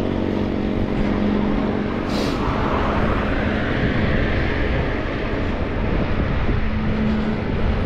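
Wind rushing over the microphone and tyre noise from an e-bike riding at about 26 km/h, with a low steady hum coming and going underneath.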